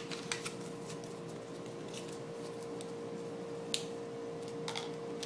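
Paper slips being folded and crinkled by hand, a series of small scattered crackles and clicks with one sharper click a little under four seconds in. A steady faint hum runs underneath.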